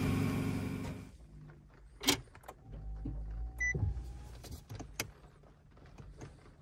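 A steady machine hum stops about a second in. Then comes the quiet cabin of an electric Opel Mokka: a low hum, scattered clicks from the centre-console buttons and gear selector, and one short electronic beep.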